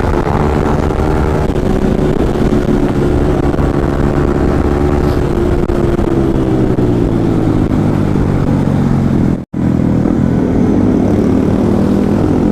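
Motorcycle engine running at steady revs, then easing off with a gradual fall in pitch, with a split-second dropout in the sound near the end.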